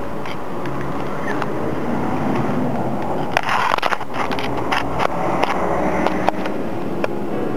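A paper bag rustling and crinkling in a cluster of short crackles about halfway through, as it is set down at the mouth of a concrete drain pipe, over a steady low rumble.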